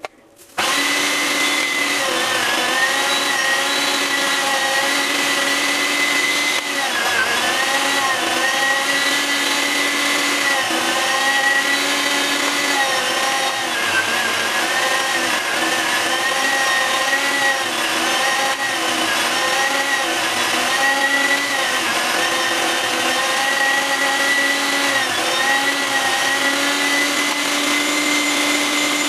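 Electric meat grinder running, mincing half-frozen beef and pork with onion. Its motor whine starts about half a second in and keeps dipping in pitch as meat is pushed through under load.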